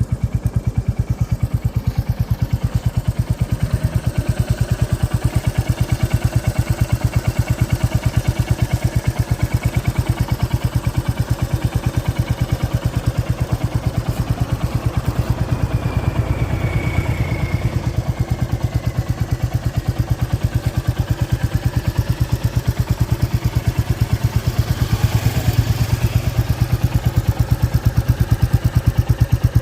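Royal Enfield Classic 350 (2023) single-cylinder engine running at a steady idle, its exhaust beating out an even, rapid thump. The level swells slightly a couple of times, about halfway through and near the end.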